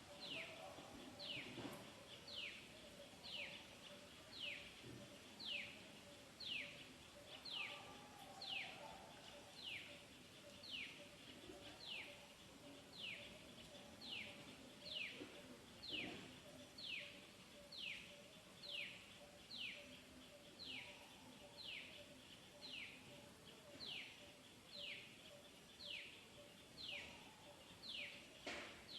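A bird calling faintly, over and over: a short high note sweeping downward, repeated evenly about once a second, with a faint steady hum underneath.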